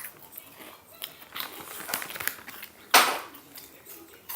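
Snack-eating noises: scattered short crunches and crinkles of a snack packet, with one louder brief crackle about three seconds in.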